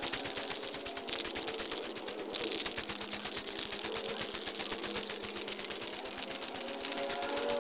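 Aerosol spray-paint can being shaken, its mixing ball rattling in rapid, steady clicks.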